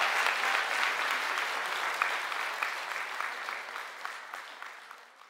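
Audience applauding with dense, steady clapping that fades away gradually toward the end.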